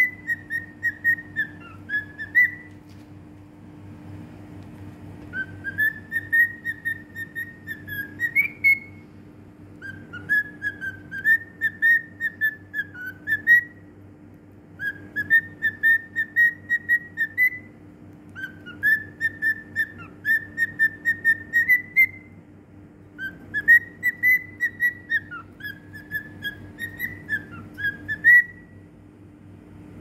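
Cockatiel whistling a tune in about six phrases of a few seconds each, every phrase a run of quick wavering notes around one pitch, with short pauses between phrases.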